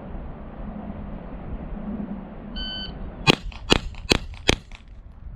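A shot timer beeps once, and about half a second later a 9mm Gen 5 Glock 17 pistol fires four quick shots, about 0.4 s apart. Wind noise on the microphone before the beep.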